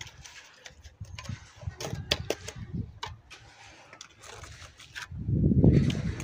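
Scattered light taps and scrapes from a mason working wet cement around the base of a rebar pillar. About five seconds in, a loud low rumble lasts for about a second.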